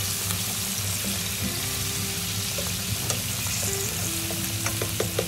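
Pork trotters frying gently in oil in a steel pot: a steady sizzle without spattering, the oil's spitting kept down by a spoonful of flour and a little salt. A few light clicks of a silicone utensil against the pot come near the end as the pieces are moved.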